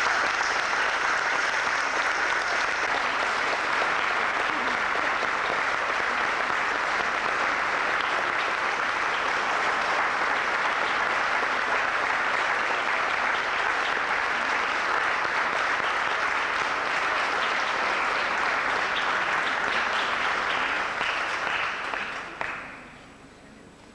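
Audience applauding: steady clapping that dies away near the end.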